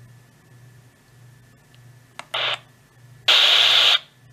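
Midland ER50 emergency radio being switched on: a button click about two seconds in, then a short burst of static from its speaker, and near the end a louder burst of hiss lasting under a second.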